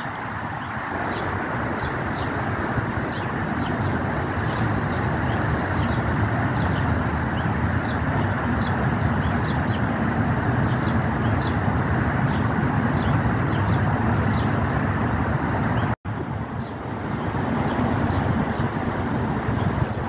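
Wind buffeting the microphone, a steady rush, with small birds chirping many times high above it. The sound cuts out for an instant about four-fifths of the way through, then the wind noise resumes.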